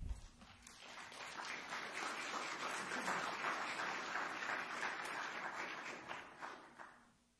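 Congregation applauding: the clapping builds over the first two seconds, holds steady, then dies away about seven seconds in. A low thump comes at the very start.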